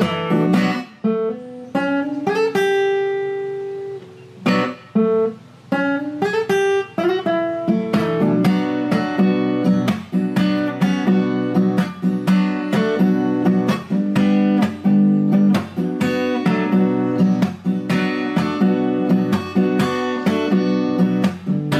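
Solo acoustic guitar with a capo and no vocals. It plays picked notes and lets one note ring for a moment over the first few seconds, then settles into steady strummed chords from about eight seconds in.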